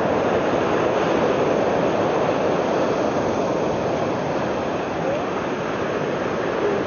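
Steady wash of ocean surf, an even rushing noise without distinct breaks.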